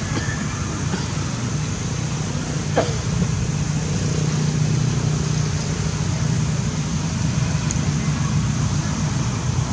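Steady outdoor background noise: a low rumble and hiss with a sharp click about three seconds in.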